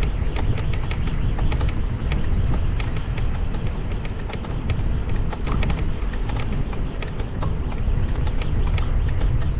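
Bicycle riding over paving stones, heard through a GoPro action camera: a steady wind rumble on the microphone with irregular clicks and rattles from the bike, several a second.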